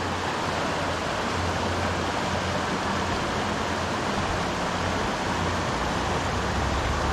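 Steady rush of river water running over a shallow, rocky riffle.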